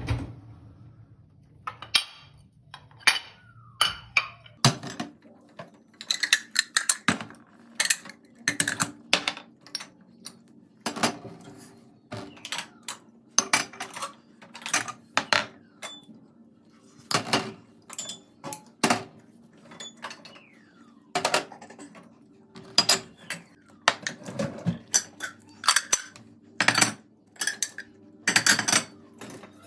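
Dishes and cutlery clinking and knocking as they are handled and put away, in irregular runs of sharp clinks. A steady low hum from an appliance starts about five seconds in.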